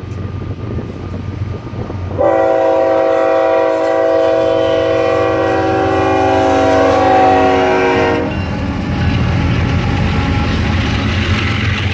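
Diesel locomotive air horn on the lead BNSF GE ES44C4 sounding one long chord-like blast of about six seconds, starting about two seconds in. Under it runs the low drone of the GE diesel engines, which gets louder after the horn stops as the locomotives come by.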